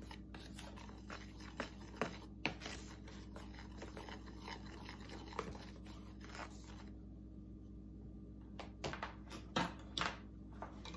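Wire whisk stirring dry flour mix in a plastic container: soft, busy scratching and scraping with light ticks of the wires against the sides. It stops about seven seconds in, followed by a few separate clicks as the whisk is set down.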